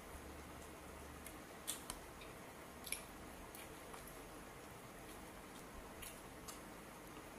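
Faint scattered clicks and crisp crackles from eating and handling lettuce leaves and barbecue skewers, a handful in all, the sharpest about two and three seconds in, over a low steady hiss.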